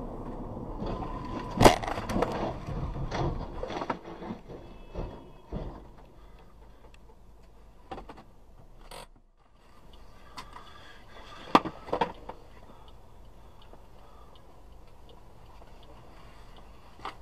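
A car crashing into the highway barrier and overturning: a loud bang about a second and a half in, then a few seconds of knocks and scraping over steady road noise. Two more sharp knocks come about twelve seconds in.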